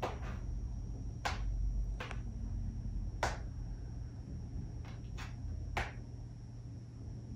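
Seven light, sharp clicks and taps spread irregularly, over a faint steady high-pitched whine and a low hum.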